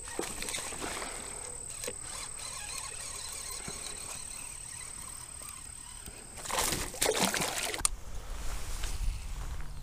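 Water sloshing and trickling beside a fishing kayak, with a loud splash about six and a half seconds in, over a thin steady high tone. Near the end a low rumble comes in.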